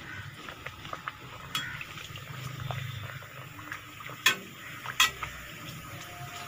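Samosa sizzling as it deep-fries in hot ghee, the oil bubbling steadily. Scattered light clicks of a utensil against the pan, with two sharp louder knocks a little past the middle.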